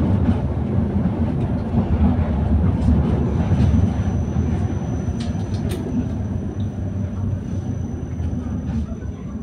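Tram running along street track, heard from on board: a steady low rumble with scattered clicks and rattles. A thin high whine joins about a third of the way in, and the rumble fades gradually toward the end.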